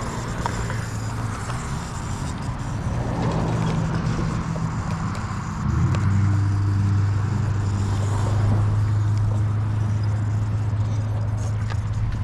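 Blade Fusion 360 electric RC helicopter in flight: a steady hum from its spinning rotor, which steps up louder and steadier about halfway through.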